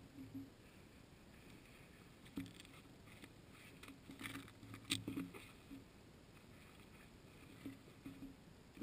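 Faint, scattered rustling of clothes and light thumps from a man changing clothes and shifting his feet, with the loudest thump a little before the middle.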